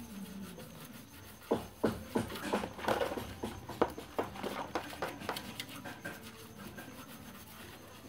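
Arno fan's plastic propeller being scrubbed by hand with a soft cloth in water in a plastic basin: a run of irregular rubbing and splashing strokes, thinning out after about five seconds.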